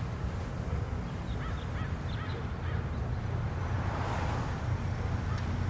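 Crows cawing a few times over a low, steady background rumble.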